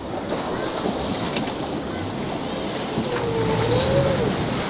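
Tour speedboat engines running nearby, under wind noise on the microphone and lapping water. A tone wavers up and down about three seconds in.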